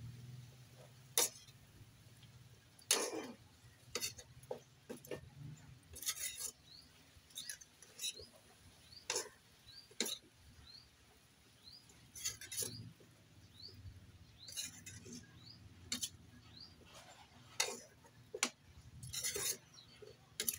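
A metal spatula scraping and clinking against a metal wok as vegetables are stirred, in irregular strokes a second or so apart.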